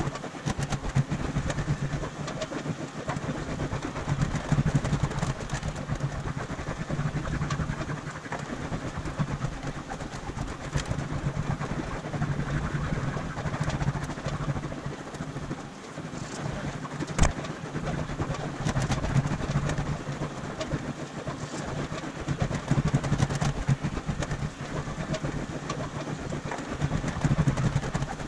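A machine running steadily with a low hum and a rattling clatter, broken by occasional sharp clicks, one strong click about two-thirds of the way through.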